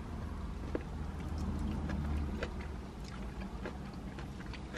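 Chewing and eating sounds from fried corn ribs, with scattered small clicks and crunches, over a steady low rumble inside a car.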